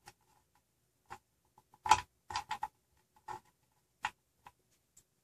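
Irregular small clicks and knocks of bolts, lock nuts and GT2 belt clamps being handled as the bolts are started by hand into the nuts on the printer bed. The loudest knock comes about two seconds in, followed at once by a quick run of clicks.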